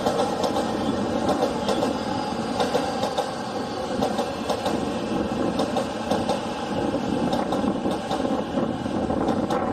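JR electric commuter train (E231/E233-series type) running past: a steady rumble of wheels on rail with many sharp clicks through it.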